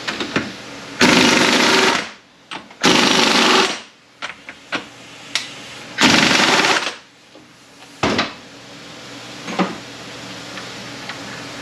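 Impact wrench rattling in three bursts of about a second each, with a short fourth burst near the end, spinning off the shaft locknuts of a 1997 Honda Accord BOYA automatic transaxle.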